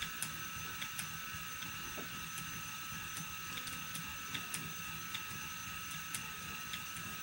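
Phoenix electric motor spinner running at a very slow spinning speed: a steady motor whine with faint, irregular ticks about twice a second as the flyer turns.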